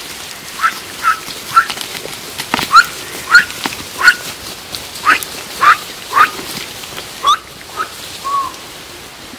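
A bird calling: about a dozen short, rising chirps at irregular intervals, over a steady background hiss.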